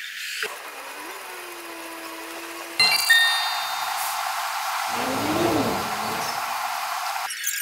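Aerosol spray-paint can spraying: a steady hiss that starts suddenly with a short ringing clink about three seconds in and stops near the end.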